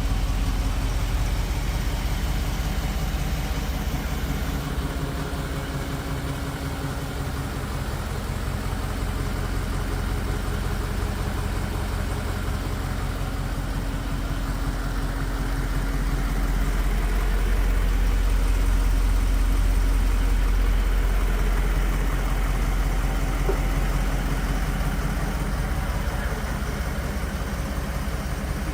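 A motor running steadily with a low, even pulsing hum, getting a little louder for a few seconds about two-thirds of the way through.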